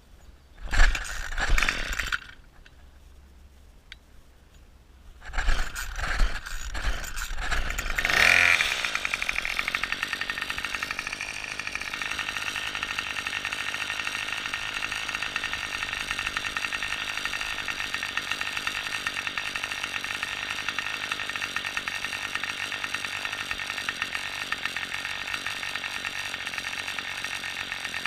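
Small two-stroke string trimmer engine being pull-started: short bursts of pulling and sputtering about a second in and again from about five seconds, then it catches about eight seconds in and keeps running steadily.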